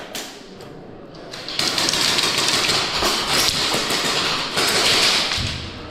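Airsoft gun fire: a long run of rapid clicking shots starting about one and a half seconds in and stopping shortly before the end.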